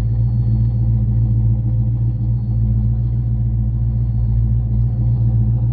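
Carbureted 302 V8 in a 1989 Mazda B2200 pickup idling steadily just after a cold start in freezing weather, heard from inside the cab.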